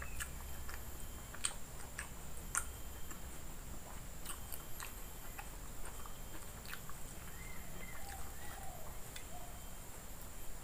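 A person chewing a mouthful of rice and boiled fern greens, with wet mouth smacks and scattered sharp clicks from lips and teeth.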